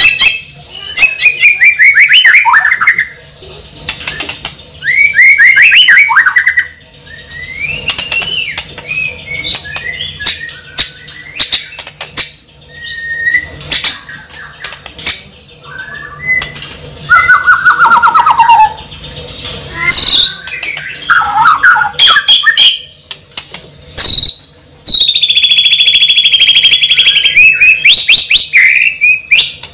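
A bird calling loudly: rapid chirps and squeaky gliding notes mixed with sharp clicks, and one long held whistle near the end.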